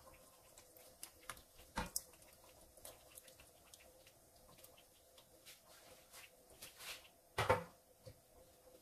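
Quiet kitchen handling sounds as coconut milk is poured from a can into a pan of fish: small clicks and soft knocks of the can, one sharper knock about two seconds in and a louder one about seven and a half seconds in, over a faint steady hum.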